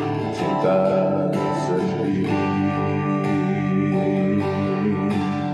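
A man singing a slow Indonesian pop ballad into a handheld microphone over a guitar backing track, holding a long note through the middle of the phrase.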